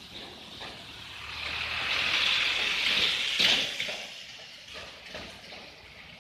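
A vehicle passing on a wet road. Tyre hiss with a faint low engine hum swells over about two seconds and then fades, with a sharp click at the loudest point.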